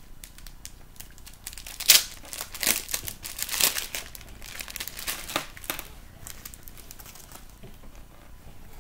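Packaging crinkling and rustling as a small wallet is handled and unwrapped, in a run of sharp crackles that are loudest about two seconds in and die down to faint handling noise after about six seconds.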